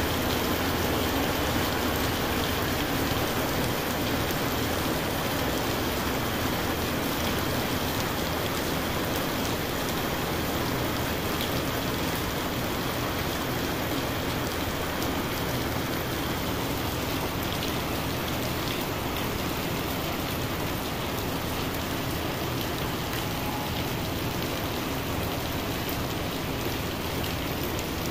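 Heavy rain falling steadily on a wet paved courtyard, with a constant hiss of drops hitting the ground and hard surfaces.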